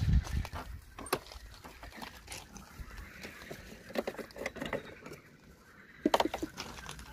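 Hands removing the plastic fuel filler cap under the seat of a Honda Dio ZX scooter: scattered plastic clicks and knocks, with a cluster about four seconds in and the loudest few knocks about six seconds in.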